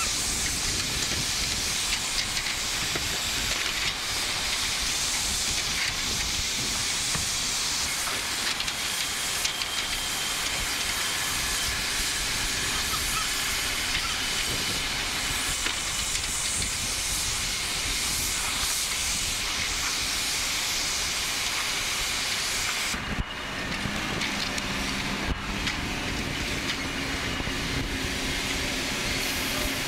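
Scrapyard material handler working on a scrap railcar: a steady hissing machine noise with scattered metal clanks. About 23 seconds in, the hiss drops and a lower steady engine hum comes up.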